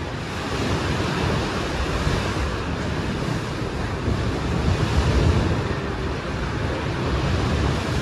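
Sea waves washing in, swelling twice, with wind buffeting the microphone as a low rumble.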